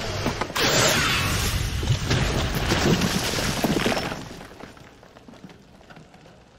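A sudden crash with breaking, shattering debris, starting about half a second in and fading away after about four seconds.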